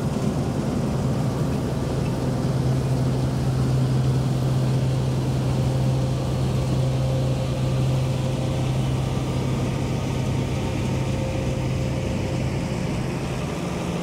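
New Holland TX65 combine harvester running steadily while harvesting wheat: a constant low engine hum under the even rushing noise of the machinery.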